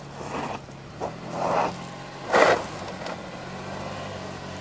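Lexus RX330's V6 engine running steadily under load during an off-road attempt, with several short rushing bursts of noise over it, the loudest about two and a half seconds in.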